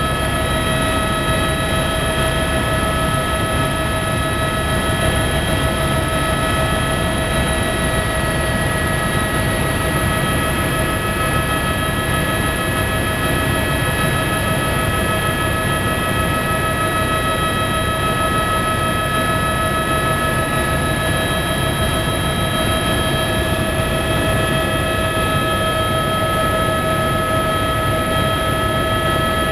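Helicopter heard from inside the cabin during takeoff and climb-out: steady rotor and engine noise with several steady whining tones over it.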